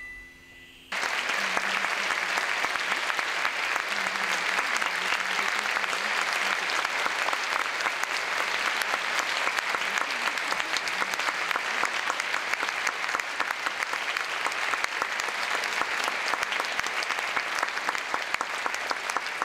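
Audience applauding steadily, starting abruptly about a second in as a fading electronic tone from the performance's score ends.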